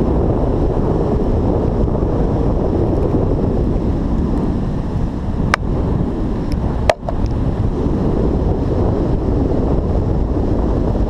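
Wind buffeting the microphone, a loud steady rumble, with two sharp clicks a little past the middle.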